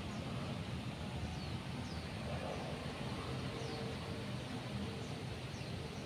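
A bird repeating a short, high, falling chirp every second or so over a steady low rumble.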